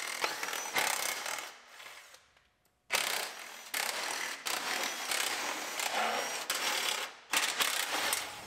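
Cordless impact driver running in several long bursts, backing out the bolts on a truck's front bumper, with a short break about two seconds in.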